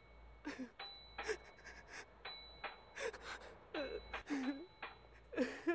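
A quick string of short, breathy human gasps, each sliding in pitch, mixed with sharp clicks and faint high steady tones that come and go, layered together as an edited sound collage.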